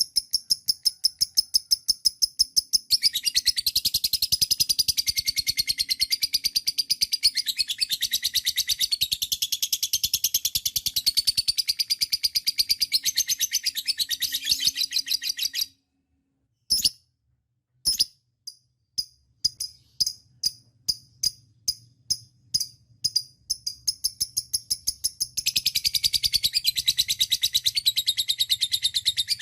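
Lovebird in a long 'ngekek' song: a rapid, continuous chattering trill of high chirps. About sixteen seconds in it cuts off suddenly for about a second. Slower single chirps follow, about two a second, before the fast chatter resumes near the end.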